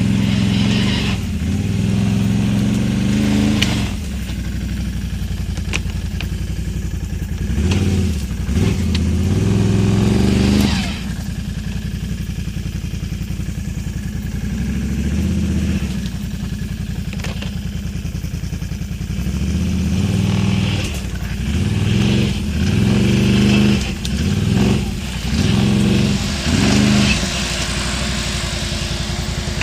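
Can-Am Outlander XMR 1000 ATV's Rotax 1000 V-twin running through dual slip-on exhausts, revved up and eased off repeatedly. It holds a quieter, steady pace in the middle, then takes a quick run of short throttle bursts near the end.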